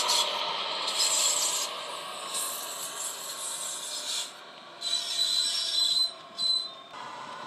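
Model railway wagons rolling past on curved track, their wheels making gritty rubbing bursts and a thin high squeal on the rails about five and six seconds in. Underneath runs the steady drone of the Class 66 diesel sound from the locomotive's decoder speaker.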